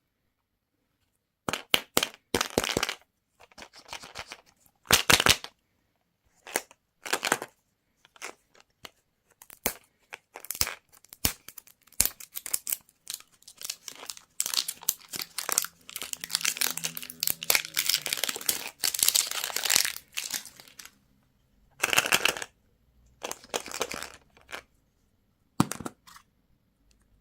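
Candy wrappers being crinkled and torn open by hand, in irregular bursts of crackling with a few sharp clicks between them.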